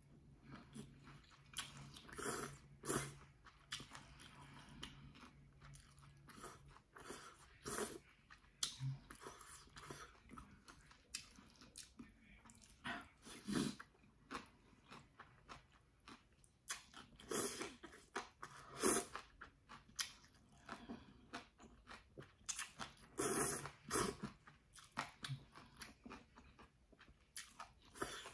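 Close-up mouth sounds of a person eating jjolmyeon noodles with leafy greens: wet chewing, smacking and slurping in short, irregular bursts, with several louder slurps or bites scattered through.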